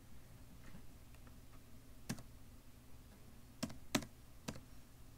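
A few separate computer keyboard key presses, about four clicks spread over several seconds, as text is deleted with the backspace key.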